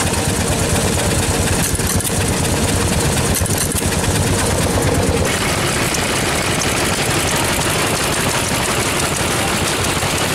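Vintage single-cylinder stationary engines running and chugging steadily. The mix of engine sounds changes suddenly about five seconds in.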